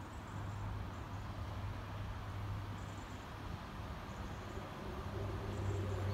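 Class 142 Pacer diesel railcar's underfloor diesel engine droning as the train pulls away from the station and approaches, a low steady hum that grows louder towards the end.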